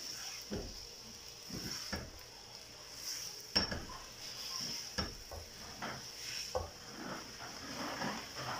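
A spatula stirring and turning rice in a frying pan as it is mixed into sweetened milk: irregular scrapes and soft knocks against the pan, the sharpest about three and a half seconds in, over a faint steady hiss.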